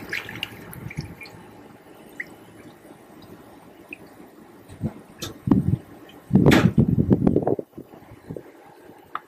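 Apple cider vinegar glugging and splashing as it is poured from a plastic jug into the filler opening of an empty Harley Sportster fuel tank. The loudest gurgling comes in a burst about six and a half seconds in.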